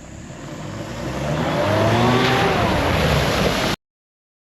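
A 4x4 vehicle's engine accelerating and growing louder over about two seconds, its pitch rising and then dipping, before the sound cuts off suddenly.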